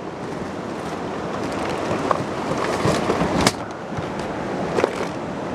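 Steady rushing of wind on the microphone, with rustles and a few sharp knocks of fishing gear being moved around on the boat's deck; the loudest knock comes about three and a half seconds in.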